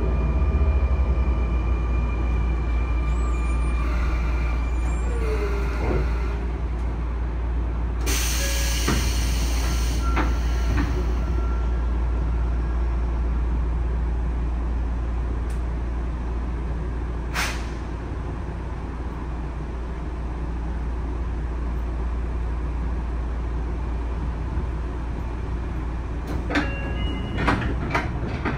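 Inside a Sotetsu 9000 series train with Hitachi IGBT-VVVF inverter control: faint inverter tones and a short falling whine as the train brakes to a stop over a steady low hum. About eight seconds in, a loud two-second hiss of compressed air comes as the stop is made and the doors open. Near the end, a run of clicks and short tones as the doors slide shut.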